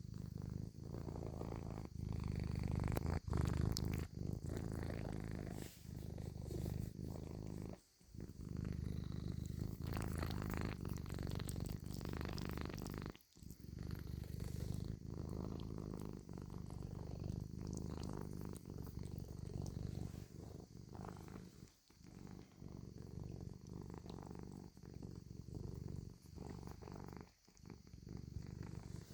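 Domestic cat purring: a steady low rumble with short breaks every few seconds.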